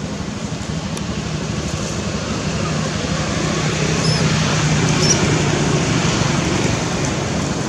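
Steady hum of road traffic, with a vehicle engine growing louder through the middle. A few short, high chirps come through about four and five seconds in.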